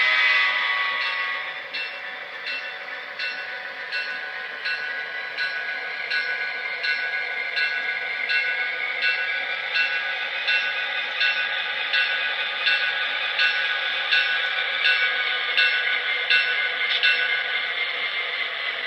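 Diesel locomotive sound from the onboard Paragon 2 sound system of a Broadway Limited Imports SD40-2 model locomotive. The tail of a horn blast fades in the first second or so, then the engine runs steadily as the model rolls slowly along. Through it comes a regular click about every two-thirds of a second.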